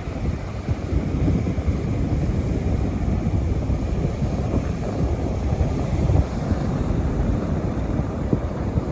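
Loud, steady low rumbling noise with no clear tone or rhythm.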